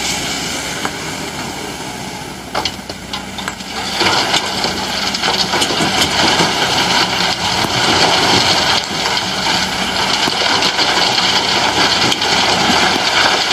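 Diesel engine of heavy digging machinery running. About four seconds in, a long rushing clatter of sand and stone starts, typical of an excavator bucket emptying sandstone into a dump truck's steel bed.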